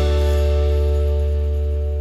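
Background music ending on one held chord with a deep bass note, slowly fading.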